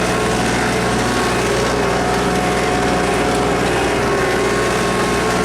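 Four-wheeler (ATV) engine running steadily while riding, with a continuous even hum.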